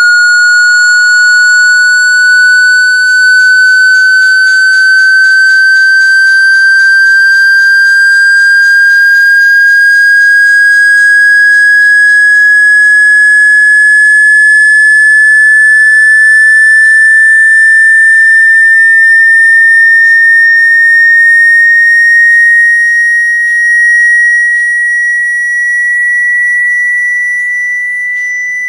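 Loud pure electronic tone, high-pitched and gliding slowly and steadily upward: a sweep tone played through a phone's speaker to shake out water that has got into it.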